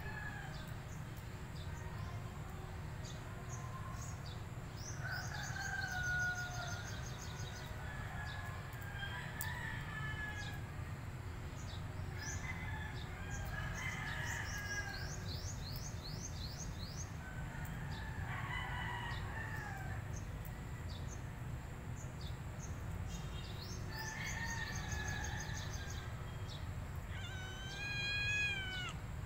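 Small birds chirping and trilling on and off, with a rooster crowing once near the end.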